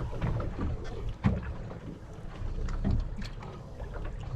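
Wind buffeting the microphone and water slapping against the hull of a boat at sea, with a sharp knock about a second in.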